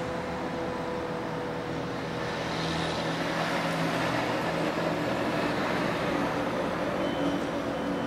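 Road traffic on a nearby highway, a steady rush of passing vehicles that swells a little in the middle.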